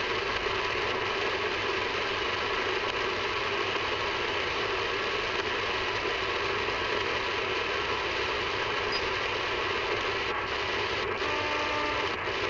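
Steady shortwave static hiss from a Sangean ATS-909X portable receiver's speaker, tuned across the 31 meter band. Near the end a few faint steady tones rise out of the hiss, as a weak station tries to come in.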